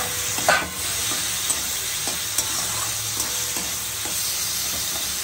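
Chopped tomatoes and onions sizzling in hot fat in a metal kadai while a metal spatula stirs and scrapes the pan, with a louder scrape about half a second in.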